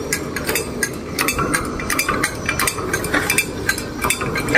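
Metal clicking and clinking from a hydraulic bottle jack being pumped against a tensioned steel chain, with several irregular sharp clicks a second over a low background noise.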